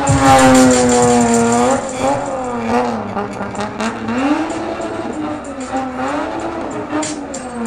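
A car's engine revving hard while it spins donuts, its pitch sliding down over the first two seconds, then rising and falling again and again as the throttle is worked.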